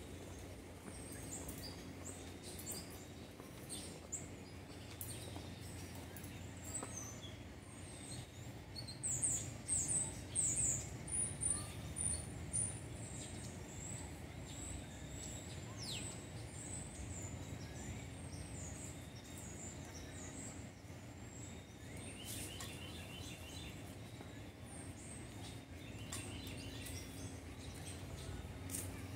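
Small birds chirping in short, high calls, thickest and loudest about nine to thirteen seconds in, over steady outdoor background noise with a faint low hum.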